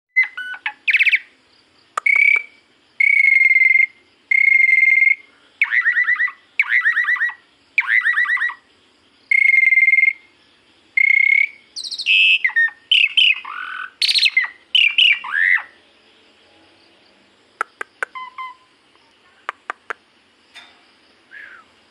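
Straw-headed bulbul (cucak rowo) singing: a run of loud, clear whistled phrases, some falling in pitch, about one a second for roughly the first sixteen seconds. After that only a few short, sharp clicks.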